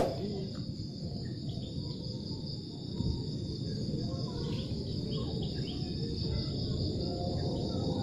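Steady high-pitched chirring of an insect chorus, with a few short, faint chirps in the second half.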